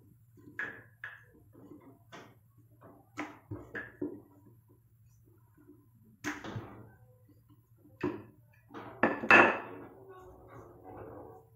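Rolling pin knocking and rattling on a rolling board as a ball of paratha dough is rolled out: a run of short, irregular knocks and taps, with a louder clatter about two-thirds of the way through.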